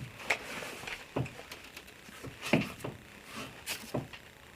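About half a dozen light knocks and clicks, spaced irregularly.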